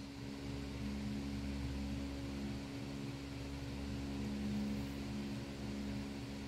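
Steady hum of an electric fan and air conditioner running, with a few constant low tones under an even whir.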